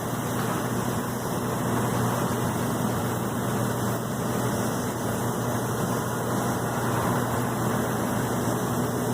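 Airliner jet engines running steadily at low power, a constant rushing noise with a low hum.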